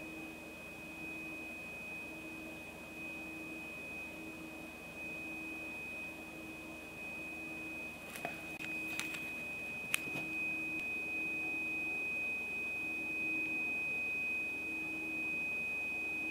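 A steady, high, single test tone of around 3,000 hertz from a phone played through a small speaker, with a few clicks about 8 to 10 seconds in. After the clicks the tone is slightly louder, as a carbon-dioxide-filled balloon between speaker and microphone focuses the sound like a lens, a gain of about 1 dB.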